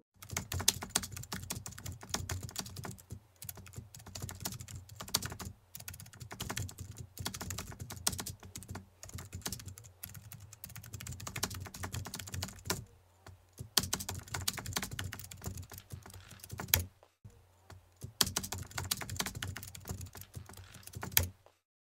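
Keyboard typing sound effect: rapid, continuous key clicks with a few brief pauses, stopping shortly before the end.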